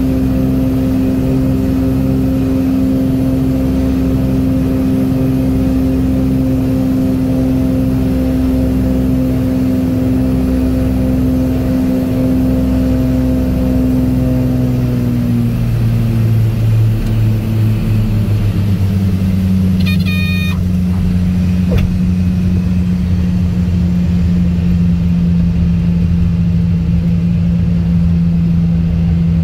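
Light airplane's piston engine and propeller droning steadily in the cockpit on final approach; about halfway through the note drops as the power comes back for landing and settles into a lower idle drone during the rollout. About two-thirds through, a brief high-pitched horn sounds, the stall warning at the flare.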